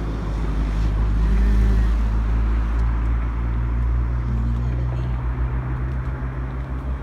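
Motor vehicle engine running close by, a steady low hum that swells about a second and a half in and then slowly eases off.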